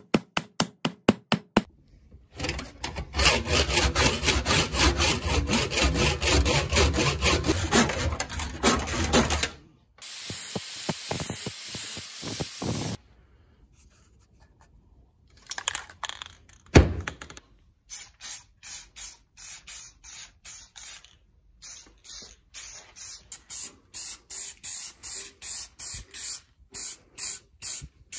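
Quick hammer blows driving a wedge into an axe head's eye, then a long stretch of rough scraping. Later comes one sharp knock, and then a spray paint can letting out short bursts of spray, about two a second.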